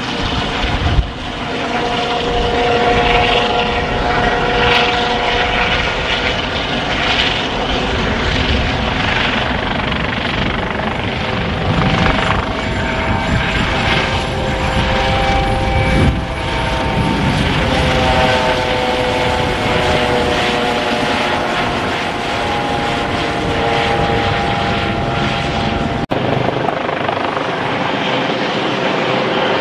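Eurocopter AS365 N3 Dauphin twin-turbine helicopter flying past: loud, steady rotor and engine noise with whining tones that slowly slide up and down in pitch. About 26 seconds in, the sound cuts abruptly to another pass of the helicopter, with less deep rumble.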